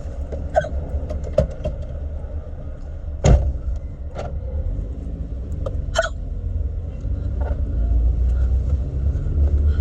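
A woman's deep hiccups, several short ones a second or two apart with the loudest about three seconds in, over the steady low rumble of the car she is riding in.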